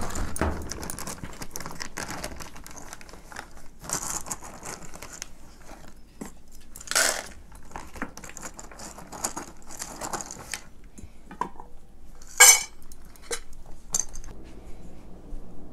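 Dishes and cutlery clattering and clinking as they are handled, in irregular bursts, with one sharp, loud clink about twelve and a half seconds in.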